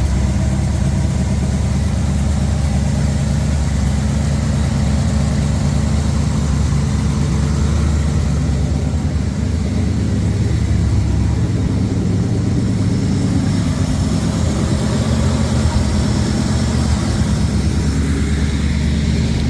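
Jeep J10 engine idling steadily and quietly while warming up. It runs smooth with no knock, though the owner says it has a bad cam bearing, found from dirty oil when the pan came off.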